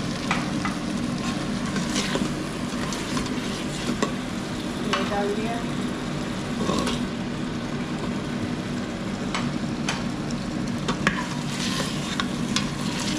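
Tomato-onion masala with peas and potatoes sizzling in oil in the stainless steel pot of an electric pressure cooker, while a steel ladle stirs and clinks irregularly against the pot, over a steady low hum. The oil has separated from the masala.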